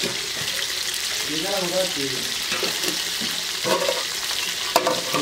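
Whole poa fish frying in oil in a karahi over a fire, a steady sizzle as they finish cooking. Two sharp clicks come near the end.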